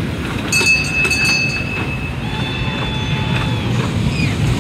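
Kiddie train ride at a fairground: a steady high-pitched tone from about half a second in, then a second held tone with a lower and a higher pitch together from about two seconds in, over a continuous low rumble.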